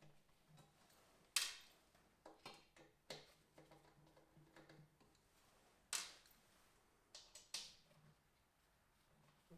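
Scattered sharp clicks and knocks of metal tools and parts being handled, each with a short ring, two louder ones about a second and a half in and near the middle, over a faint steady hum.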